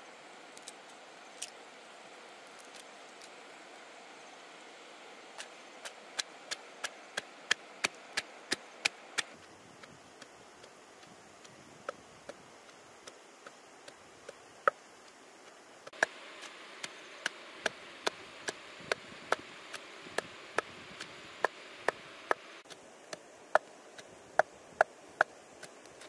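Chopping with a blade: sharp strokes about three a second in two runs, with a few single strokes between them.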